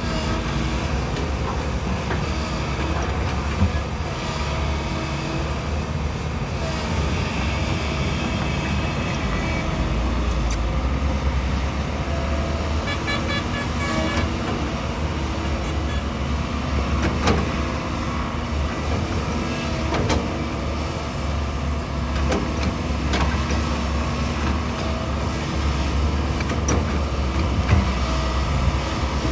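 Heavy excavator working: its diesel engine runs steadily under load with the hydraulics, with a few sharp knocks as it works the soil. A short run of quick beeps comes about thirteen seconds in.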